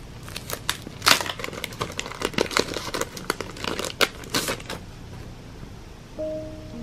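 Clear plastic cellophane sleeve crinkling and crackling as sticker sheets are handled and slid out of it, from about half a second in until nearly five seconds. Soft piano notes begin near the end.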